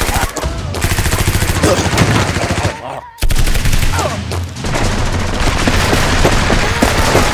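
Rapid automatic gunfire sound effects, a dense stream of shots that breaks off for a moment about three seconds in and then goes on.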